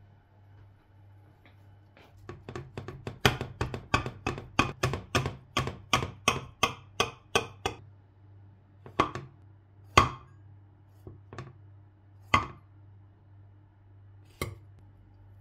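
Knife tip stabbing holes into a baked chocolate cake and clicking against the bottom of its glass baking dish. A quick run of about four clicks a second, then a few single clicks spaced further apart.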